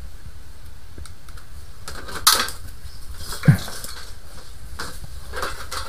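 Clattering and knocking as gear and a wet/dry vacuum's corrugated hose are handled: a few sharp knocks, the loudest about two seconds in, and a dull thud about a second later.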